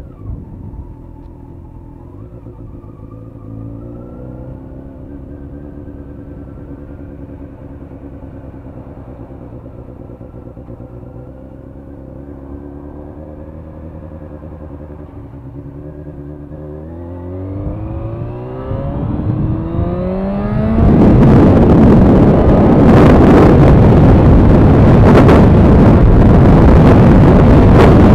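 Motorcycle engine running at low revs with small shifts in pitch, then revving up with a rising pitch as the bike accelerates about two-thirds of the way through. About three-quarters through, loud wind noise on the microphone at road speed takes over and drowns the engine.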